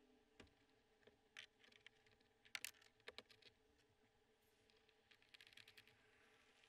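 Faint, scattered light clicks and taps of mounting hardware handled against a hard plastic roof case, with a quick run of small clicks near the end.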